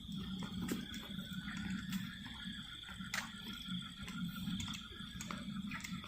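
Night outdoor ambience: a steady high-pitched insect drone, such as crickets, over a low rumble, with scattered sharp clicks and rustles.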